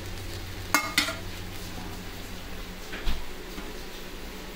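A metal utensil clanking against a cooking pan while fried rice is stirred: a sharp clang about a second in and a duller knock about three seconds in, over a steady low hum.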